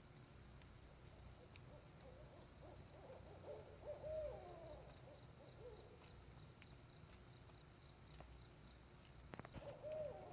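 Barred owls hooting in a wavering, sliding bout a few seconds in, with another bout starting near the end; the calls are faint.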